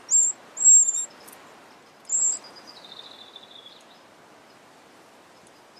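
Eurasian wren nestlings giving high, thin begging squeaks from the nest: three short bursts in the first two and a half seconds, then a fainter, lower note held for about a second.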